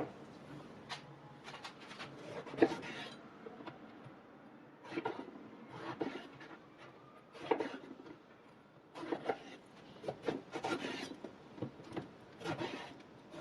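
Kitchen work with utensils: short bursts of scraping and light knocks, coming in groups every second or two.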